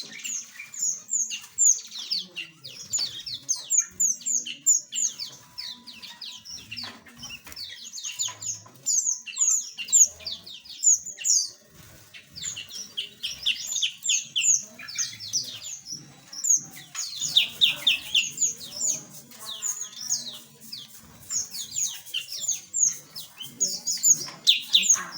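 A flock of small aviary birds chirping continuously: many quick, high, downward-sweeping chirps overlapping, with hardly a pause.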